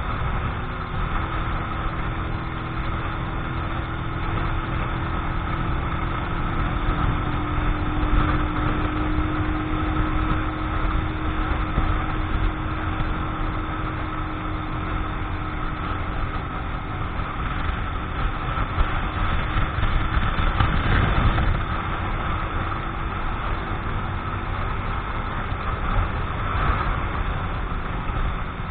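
Keeway X-Light 125 cc motorcycle's single-cylinder engine running steadily at cruising speed, heard from the rider's position with wind rushing over the microphone. The bike is being run in.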